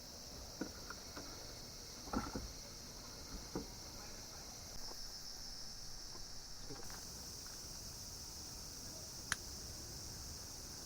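Steady high-pitched chirring of autumn insects, with a few scattered knocks and clicks, the sharpest near the end.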